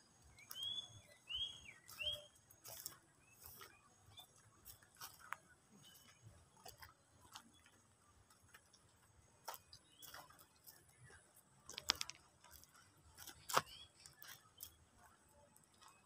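Footsteps crunching and scuffing on a dirt path strewn with dry leaves, irregular soft clicks with two sharper ones near the end. A bird gives three short high chirps in the first two seconds.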